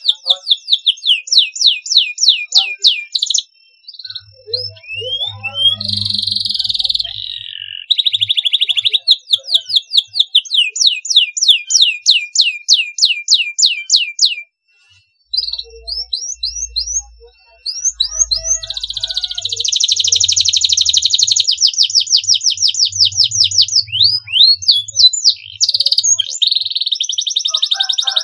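Domestic canary singing: fast trills of short, repeated sweeping whistled notes in phrases of a few seconds, broken by brief pauses.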